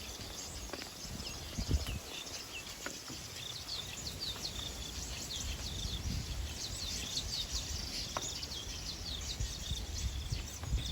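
Small birds chirping busily outdoors: many short, quick, falling chirps, with occasional low thumps underneath.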